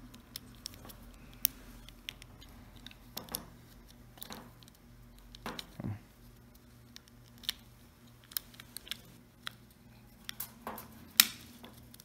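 Scattered small clicks and taps as a clipper's metal toggle switch and its wire terminals are handled and pushed through the plastic switch cap, with the sharpest click about a second before the end.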